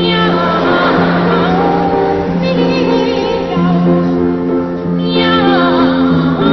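A song: voices singing wavering, gliding lines over held accompaniment notes.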